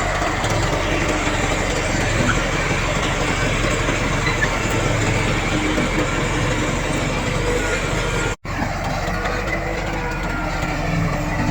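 Heavy diesel engines of earthmoving machines running steadily, a bulldozer and dump trucks at work. The sound cuts out for a split second about eight seconds in.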